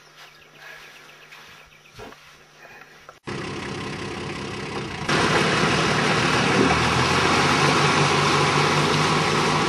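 Faint outdoor background for about three seconds, then an abrupt cut to a steady engine running, which gets louder about five seconds in.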